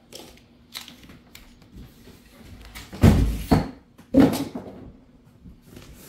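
A large cardboard shipping box being handled as its plastic side clips are squeezed and pulled out: a few light clicks, then heavy knocks and scuffs on the cardboard, two about three seconds in and another about a second later.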